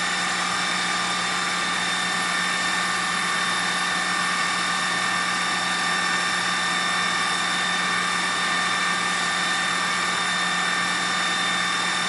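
Fire truck engine running steadily, with a constant hum and several high steady whining tones over it.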